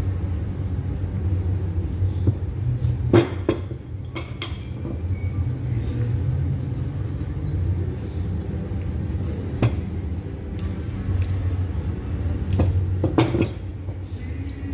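Steady low rumble of room noise with a handful of sharp clinks and knocks of tableware as someone eats at a table.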